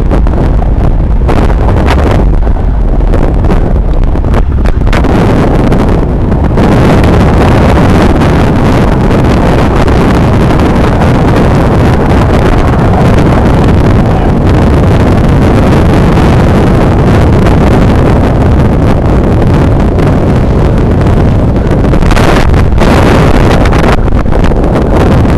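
Loud, steady rush of wind buffeting the microphone of a camera mounted on a road bicycle riding at speed.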